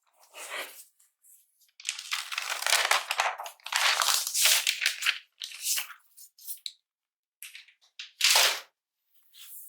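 Packaging being handled: paper and plastic wrap rustling and tearing in a run of irregular bursts, loudest in the middle, with one more short sharp rip late on.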